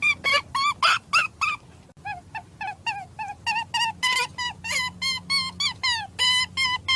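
An animal giving a rapid series of short, high-pitched calls, about three or four a second, with a brief lull about two seconds in.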